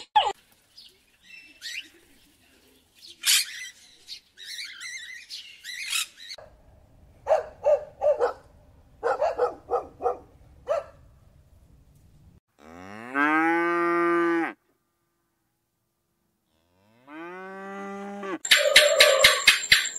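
Cattle mooing: two long moos a few seconds apart, each rising in pitch at its start and then held.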